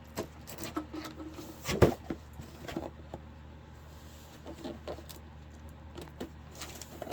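Scattered small clicks and knocks of a plastic toy and its packaging being handled, with one louder knock about two seconds in, over a faint steady low hum.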